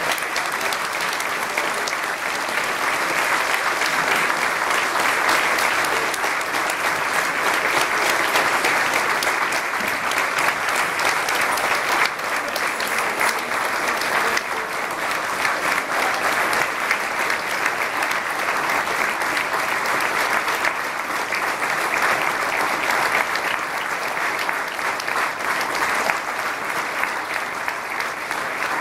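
Concert audience applauding, many hands clapping in a dense, steady, unbroken wash of sound.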